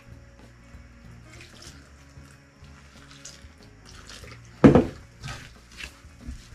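Water poured from a plastic jug into flour in a steel mixing bowl and hands working it into chapati dough, with a loud knock a little past the middle. Background music plays under it.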